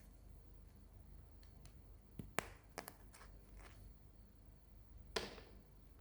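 Hands handling toys: a quick run of sharp clicks and taps about two seconds in, then one louder click with a short rattle just past five seconds, over a quiet background.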